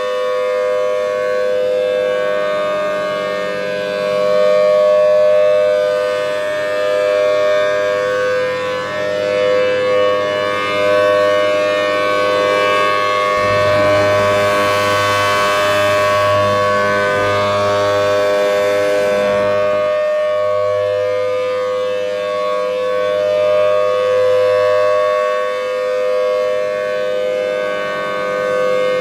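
Federal Signal Thunderbolt 1000T outdoor warning siren holding a steady two-tone chord at full pitch, its loudness swelling and fading slowly. For several seconds midway a rushing noise rises under the tone.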